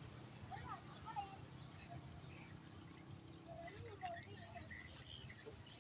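Small birds chirping and twittering in many short, rising and falling calls, over a steady thin high-pitched tone and a low background rumble.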